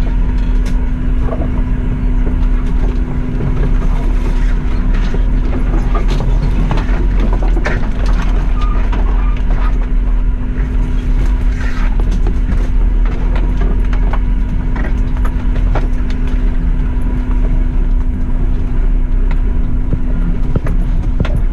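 Suzuki Jimny running at low speed on a rough off-road track, heard as a steady low drone, with frequent short knocks and crunches from the vehicle working over uneven ground.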